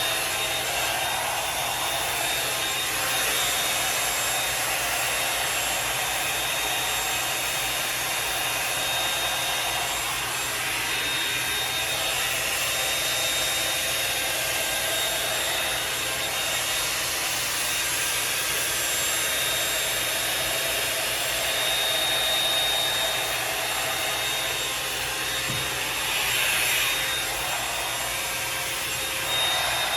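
Revlon One-Step hair dryer brush blowing steadily with a thin high whine, its bristles rubbing and rasping through hair as it is pulled through.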